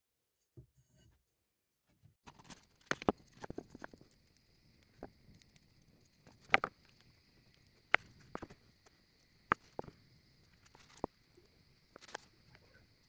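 Irregular sharp knocks and clicks, about a dozen, from handling tools and lumber during post work, over a faint steady high-pitched hum that starts about two seconds in.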